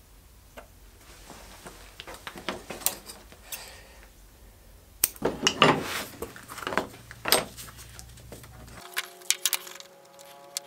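Clicks, taps and clinks of leather and hand tools being handled on a wooden workbench. Near the end, background music with soft held notes comes in.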